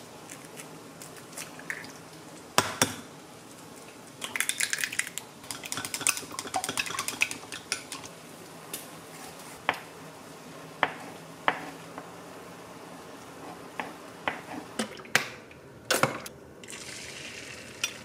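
Kitchen prep sounds. A sharp knock, then a utensil clinking rapidly against a glass cup as eggs are beaten for a few seconds. Then a knife knocks on a wooden cutting board as salted pollock roe is chopped, and near the end a short hiss as beaten egg is poured into a hot rectangular egg-roll pan.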